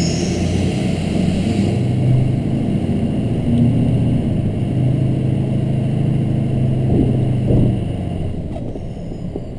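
2004 Ford 6.0 Power Stroke V8 turbo-diesel running, its high turbo whistle fading out over the first two seconds while the engine drone carries on. The engine note eases off near the end as a faint turbo whistle starts up again.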